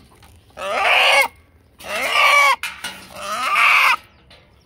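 A rooster giving three loud, harsh calls about a second apart, each under a second long. The family hears these calls as the bird saying "Allah Allah".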